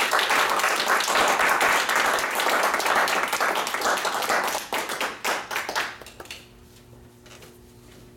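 Small audience applauding, a dense patter of many hands clapping that dies away about five to six seconds in. After that the room goes quiet apart from a faint steady hum.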